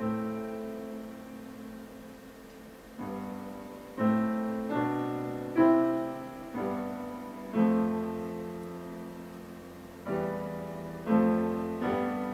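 Slow, sparse piano music: single notes or chords struck one at a time and left to ring and fade, about ten in all, the first ringing on alone for about three seconds before the rest come closer together.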